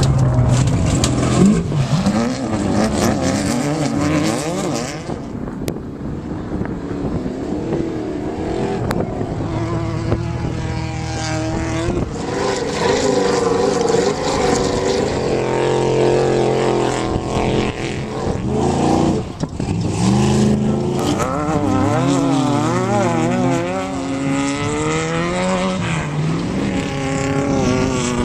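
Off-road race vehicle engines running hard, their pitch repeatedly rising and falling as they rev up and ease off, with two engines overlapping at times.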